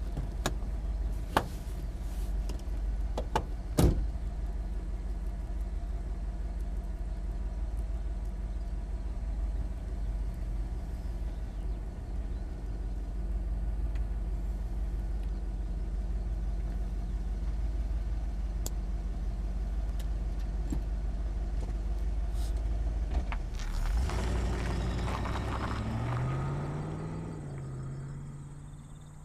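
Car engine idling, heard inside the cabin, with a car door clicking open and then shut hard in the first four seconds. Near the end the engine revs up as the car pulls away, its pitch rising and the sound fading.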